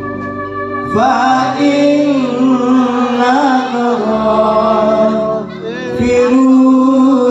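A man sings a melismatic devotional song into a microphone over an amplified instrumental ensemble. The voice comes in about a second in, over held instrumental notes.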